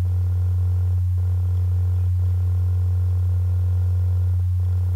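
Loud, steady, low electrical hum: one deep continuous tone with fainter higher overtones, unchanging throughout.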